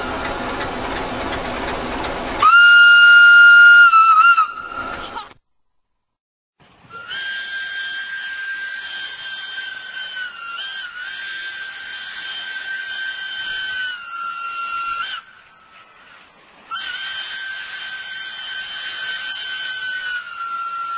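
Romanian class 060-DA diesel locomotive air whistle: a loud short blast about two and a half seconds in, then, after a brief silence, two long held single-note blasts, each dropping slightly in pitch just before it stops.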